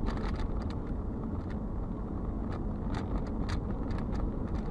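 Steady engine and tyre rumble of a moving car heard from inside the cabin, with a few light ticks and rattles.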